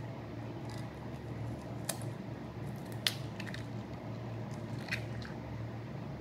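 An egg being cracked by hand and emptied onto raw chicken pieces on a plate: a few light clicks, the sharpest about three seconds in, over a steady low hum.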